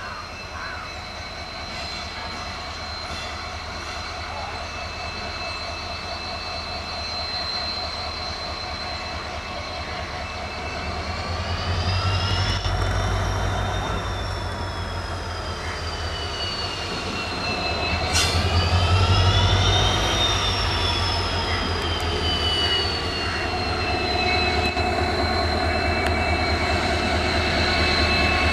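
EMD diesel locomotive running past, with a high steady whine over a low engine rumble. The whine swells and rises in pitch twice, falling back slowly each time, and a single sharp clank comes about two-thirds of the way through.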